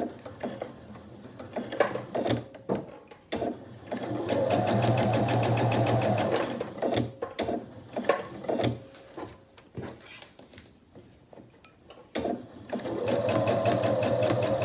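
Pfaff electronic sewing machine stitching through quilted fabric and batting in two steady runs: one about four seconds in, and a second starting near the end. Scattered clicks and taps come in between.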